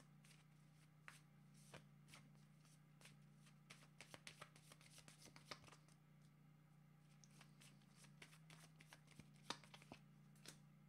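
Oracle cards being shuffled and handled: soft scattered flicks and slides of card stock, busiest about four to five seconds in and again near the end, over a faint steady hum.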